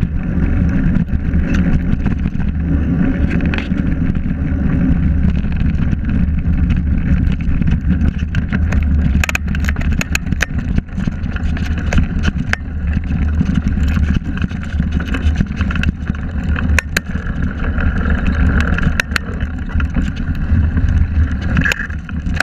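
Mountain bike descending a dirt singletrack at speed: wind buffeting the on-bike microphone and tyre noise on the dirt, with scattered sharp clicks and rattles from stones and the bike, most of them in the middle of the run.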